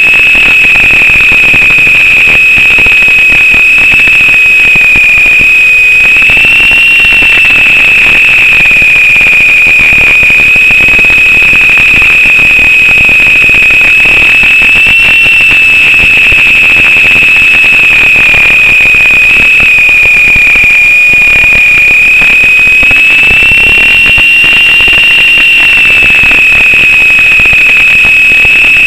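Lama coaxial RC helicopter in flight, heard through its onboard microphone: a loud, steady high-pitched motor whine that drifts slightly up and down in pitch, over a constant rushing hiss.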